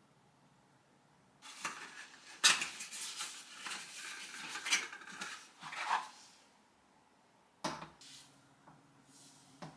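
Dishes and cutlery clinking and clattering: a busy run of small sharp clinks lasting about five seconds, starting a second and a half in, then a single sharp knock near the end.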